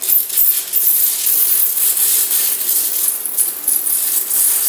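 Multiplaz 3500 plasma torch burning its 50% alcohol fuel mix while warming up: a hiss with fast, irregular crackling.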